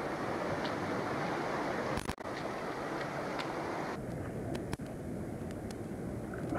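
Steady rushing outdoor noise of wind buffeting the microphone over shallow water being disturbed. It breaks off for a moment about two seconds in and changes tone near four seconds in, with a few faint clicks after that.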